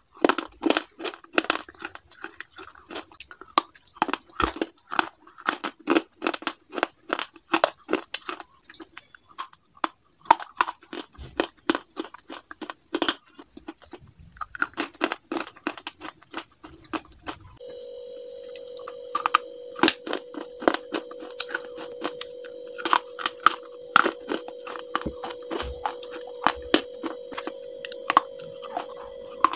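Slate pencils bitten and chewed close to the microphone: a rapid, irregular run of dry crunches and snaps. About two-thirds of the way through, a steady hum with a faint high whine starts and carries on under the crunching.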